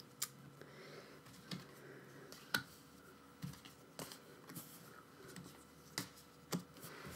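Faint, scattered light clicks and taps, a second or so apart, from photocards being handled and laid down on a desk.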